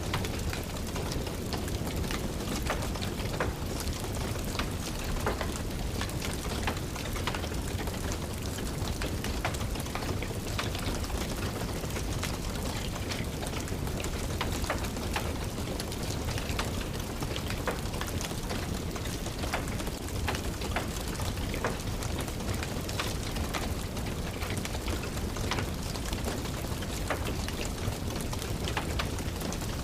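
Steady rain, tapping on a windowsill, mixed with the crackle of a wood fire in a fireplace, with scattered pops throughout.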